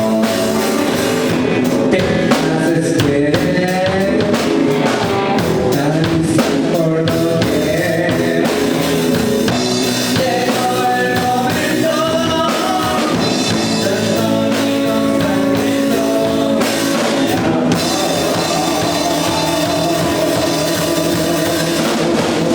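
Blues band playing a song, with drum kit and guitar and some singing.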